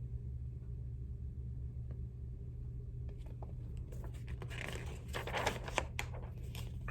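Paper rustling and crinkling with light clicks from about three seconds in: a picture-book page being handled and turned. A low steady hum runs underneath.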